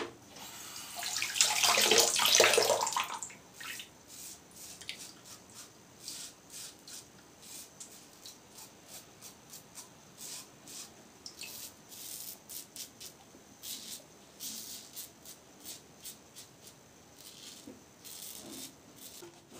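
A tap runs briefly about a second in, rinsing the razor, then a Gillette 1930 New open-comb safety razor with a Supermax blade scrapes through lathered stubble in a steady run of short strokes during an across-the-grain pass.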